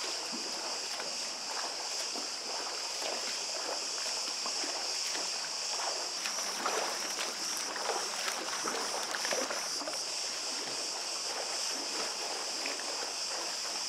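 Swimmers doing front crawl in a pool, their arm strokes splashing the water irregularly, over a steady high-pitched hiss.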